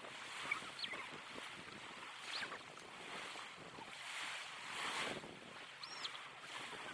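Small waves breaking and washing up a sandy beach: a hissing wash that swells and fades every couple of seconds.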